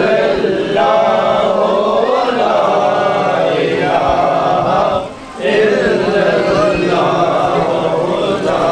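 Men's voices chanting together in a group, with a short break about five seconds in.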